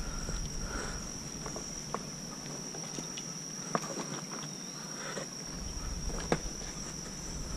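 A steady high-pitched insect drone, with a few light clicks and knocks from a kayak paddle being worked among bankside branches.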